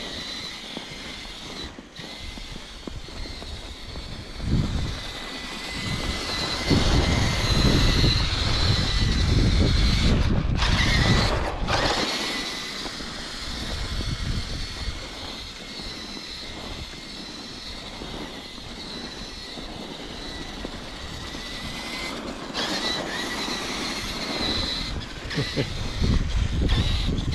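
Electric RC truck's motor and gear drivetrain whining steadily as it drives through snow, with heavy low rumbling that swells in the first half.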